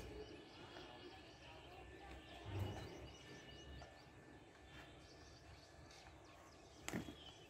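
Quiet outdoor ambience, with a soft low thud about two and a half seconds in and a single sharp knock near the end.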